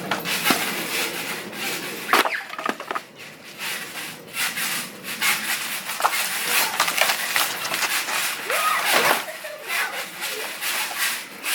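Wooden shed being torn apart: boards cracking and splintering, with irregular knocks and scraping of wood on wood.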